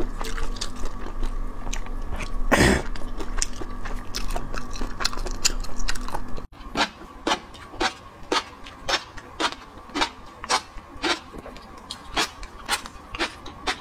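Close-miked eating sounds: wet chewing and clicking mouth noises while eating sea snail strands in scallion oil, with one louder wet bite or slurp about three seconds in. After a cut, a steady run of chewing clicks, about two a second, while eating raw shrimp topped with fish roe.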